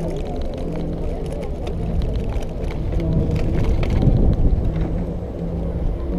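Steady low rumble with scattered short knocks and rattles, from riding a Xiaomi M365 electric scooter over city pavement.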